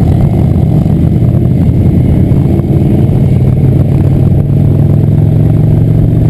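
Cruiser motorcycle engine running steadily at cruising speed, heard from on the bike itself, a constant low drone that holds one pitch.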